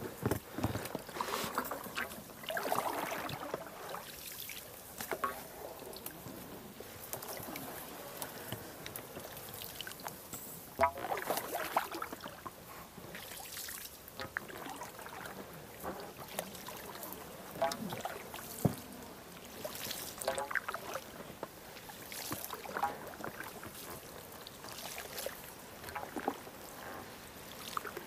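Small boat moving quietly on water: water trickling and sloshing, with scattered light knocks.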